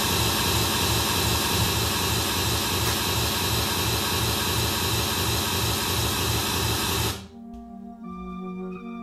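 Loud electronic static hiss, like a television with no signal, switched on by remote control, cutting off suddenly about seven seconds in. Faint background music underneath.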